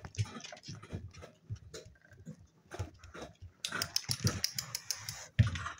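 Seven-week-old spaniel puppies at play on a hard floor: scuffles and short clicks throughout, a fast run of clicks for about a second from about three and a half seconds in, and a thump near the end.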